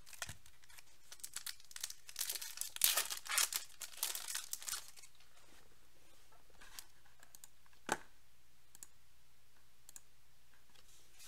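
Foil wrapper of a baseball card pack being torn open and crinkled by hand, a run of crackling rustles between about one and five seconds in. A single sharp tap follows near eight seconds in.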